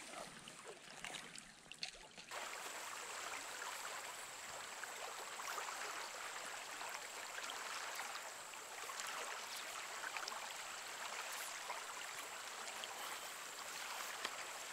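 Small, shallow creek flowing and trickling steadily. It comes in fuller about two seconds in, after a quieter start with a few faint clicks.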